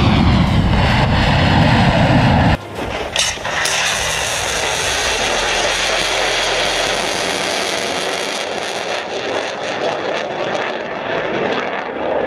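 Missile launch from a truck-mounted launcher: a loud, deep roar of the launch blast, then, after an abrupt cut about two and a half seconds in, the steady rushing roar of the missile's motor as it climbs away.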